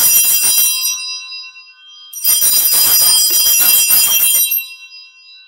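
Altar bells, a cluster of small sacring bells, shaken in jangling rounds: one round ends about half a second in and rings on briefly, and another starts about two seconds in and lasts about two seconds before dying away. They are rung at the elevation of the consecrated host.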